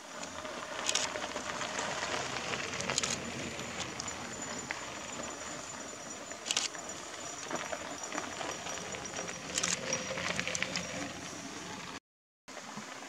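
Bicycles rolling past on a gravel road: tyres crunching over loose stones, with a few sharp crackles as bikes pass close by. The sound cuts out for a moment near the end.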